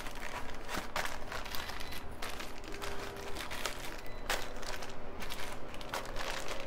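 Plastic parts bags crinkling and rustling in irregular bursts as hands shuffle them and press them down into a foam packing tray.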